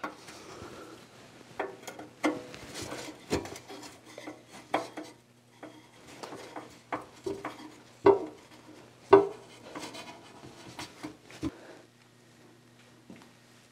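Hand tools, bolts and heavy sheet-steel coolant shields clinking, knocking and scraping as the shields are bolted onto a Brown & Sharpe 6/18 surface grinder: irregular metallic knocks over a faint steady low hum, stopping near the end.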